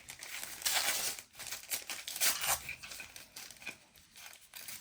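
Packaging crinkling and rustling as it is handled, in irregular bursts, loudest about a second in and again just past two seconds.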